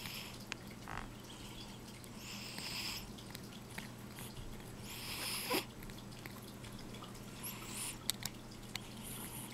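Faint short breathy hisses from a cat, twice, while a metal dental scaler scrapes plaque from its teeth, with a few light clicks of the tool near the end.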